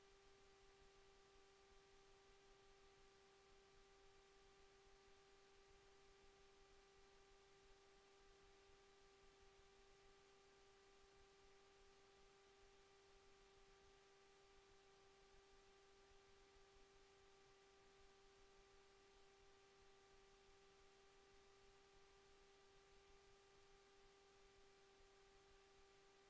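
Near silence: room tone with a faint steady hum held at one pitch, unchanging throughout.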